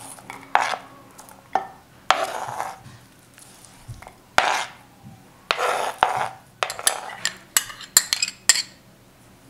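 A metal spoon scraping chopped onion and tomato off a plastic cutting board into a baking dish in a series of short scrapes, followed by a quick run of sharp clinks and taps against the dish in the second half.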